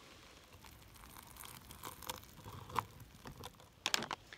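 Boiling water poured from a Jetboil Flash cooking cup into a foil freeze-dried meal pouch, the pouch faintly crinkling and rustling. About four seconds in, a short clatter as the cup is set back down on its burner.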